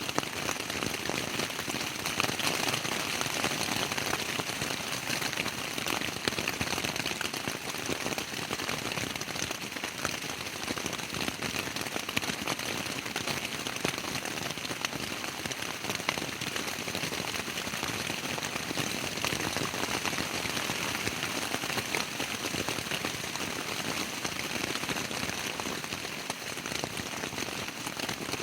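Rain falling steadily on a tent, heard from inside: a dense, even spatter of drops on the fabric.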